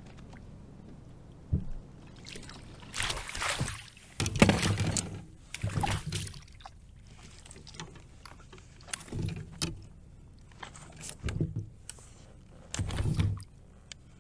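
A hooked northern pike splashing and thrashing in the water beside a kayak as it is scooped into a landing net. The splashing comes in repeated bursts, the loudest about four seconds in, with a few sharp knocks of gear against the hull.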